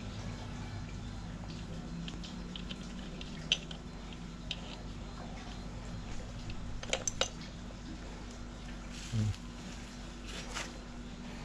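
Scattered light clicks and taps of hand tools and engine parts being handled during an engine teardown, with a quick cluster of clicks about seven seconds in and a dull knock about nine seconds in, over a low steady hum.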